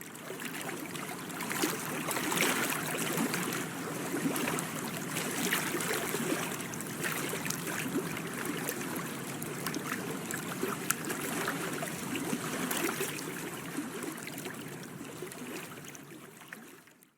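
Water lapping and splashing, a steady rush with many small splashy ticks, fading in at the start and out at the end.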